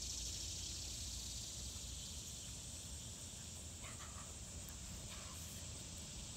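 A steady, high-pitched chorus of insects, with a faint low rumble beneath it.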